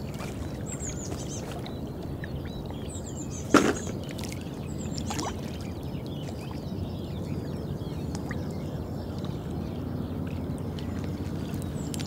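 Outdoor lakeside ambience: a steady low rumble with faint, short high chirps. A sudden sharp sound about three and a half seconds in is the loudest thing, and a smaller one follows about a second and a half later.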